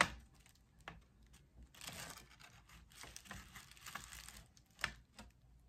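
Quiet handling noises from a plastic instant camera and a paper instruction sheet. A sharp click comes right at the start, then scattered faint clicks and rustles of paper and plastic.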